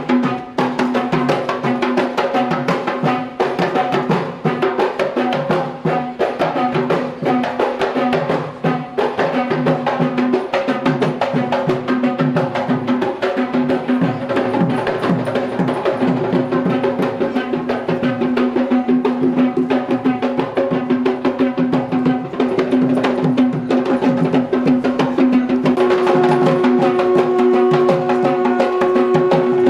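Traditional procession music: fast, dense drumming over a sustained melody line, which moves to a higher held note near the end.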